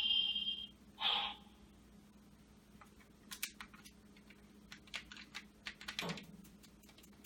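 Light plastic clicks and taps from handling a toy transformation device, the Ryutsueder changer and its Kyutama piece, scattered through the middle and later part, after a short tone and a brief noise in the first second or so.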